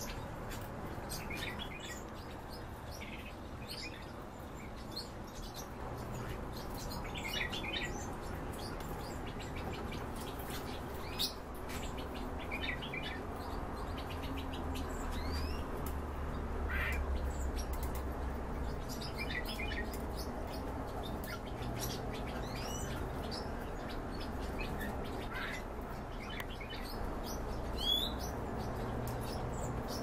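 Bee-eaters giving short, scattered chirping calls, sometimes a few in quick succession, over a steady low hum.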